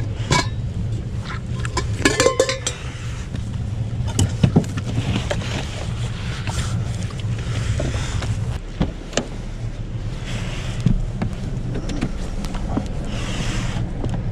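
Car engine idling, a steady low hum heard from inside the cabin, left running to keep the battery charged. Over it, a crumpled plastic water bottle is handled, with scattered knocks and clinks.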